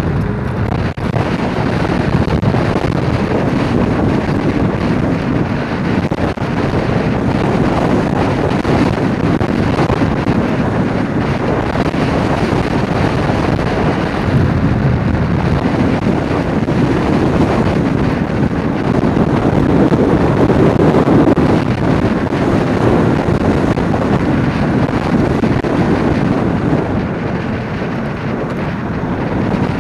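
Wind rushing over the microphone of a camera mounted on a moving electric scooter: a steady, heavy rush that swells a little past the middle and eases near the end.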